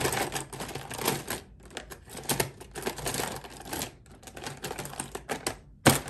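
Plastic pens and markers clattering and clicking as they are rummaged through and sorted by hand, in an irregular run of clicks and rustles, with one sharp, loud click about six seconds in.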